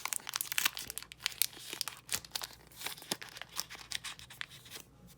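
Foil trading-card booster pack wrapper being carefully torn open, with a dense run of crinkling and tearing crackles that thins out near the end.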